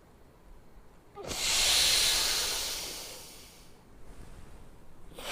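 Long, forceful breath through one nostril as part of alternate-nostril pranayama breathing: a loud hiss that starts suddenly about a second in and fades over a couple of seconds, with another breath beginning near the end.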